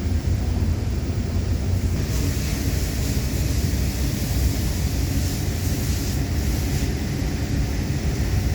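Steady low machinery rumble with a hiss that comes up about two seconds in and fades near the end, heard during TIG welding of an Inconel joint.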